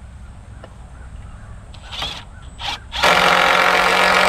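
Milwaukee M12 cordless driver running for nearly two seconds near the end, driving a screw into a rafter hurricane bracket. It is preceded by two short harsh sounds about a second apart.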